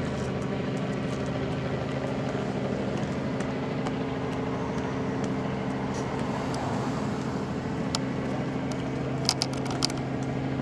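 Steady hum of a running motor vehicle engine, with a few sharp clicks near the end.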